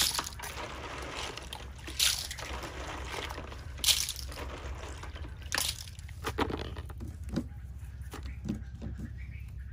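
Water sloshing and splashing in a basin as food is washed by hand, in irregular splashes a second or two apart.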